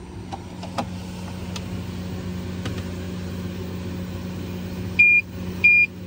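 Toptes RT-389 refrigerant leak detector giving two short high-pitched beeps near the end as its probe picks up refrigerant in the freezer compartment, the sign of a slow leak in the freezer evaporator coil. A steady low hum sits underneath.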